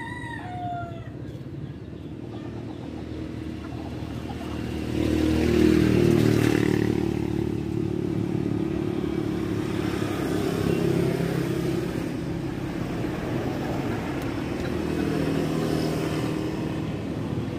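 A motor vehicle engine, motorcycle-like, running steadily; it grows louder about five seconds in, then holds. A chicken call sounds at the very start.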